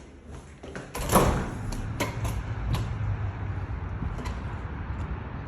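A door being opened: a loud sweeping noise about a second in, then a steady low rumble with a few light knocks and clicks.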